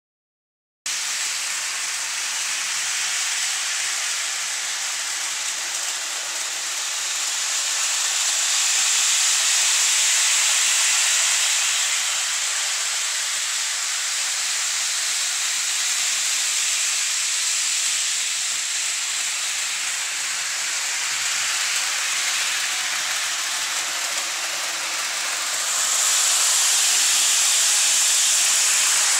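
Bachmann HO-scale model train running at full speed around its track, a steady high-pitched rushing hiss that begins about a second in, swells around ten seconds in and again near the end as the train passes close by.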